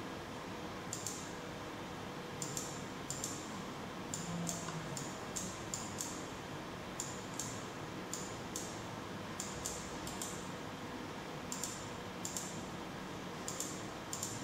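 Computer mouse button clicking at irregular intervals, single clicks and quick pairs about every half second to second, over a steady faint hiss.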